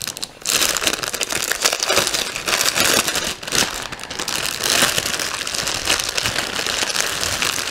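Clear plastic film packaging crinkling and crackling as hands pull it off and bunch it up, a dense crackle that starts about half a second in.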